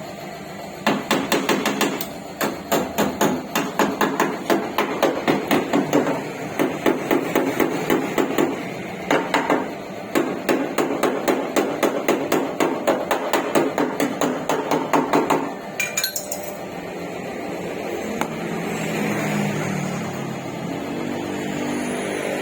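Hammer beating sheet metal in quick, even strikes, several a second, with a few short breaks; typical of panel-beating a car body panel during bodywork repair. The hammering stops a few seconds before the end, leaving a steady hum.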